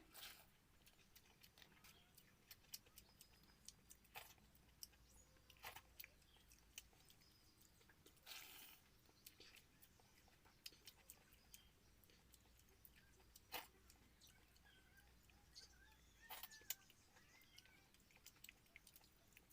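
Faint eating sounds: chewing and lip-smacking with many small mouth clicks and a few louder wet smacks, from someone eating watered rice (pakhala) with vegetable curry.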